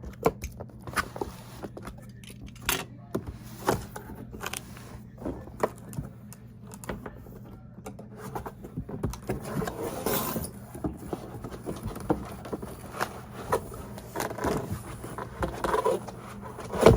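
Cardboard packaging being handled and opened: scraping and rustling with scattered sharp taps and clicks, busiest about halfway through. A steady low hum runs underneath.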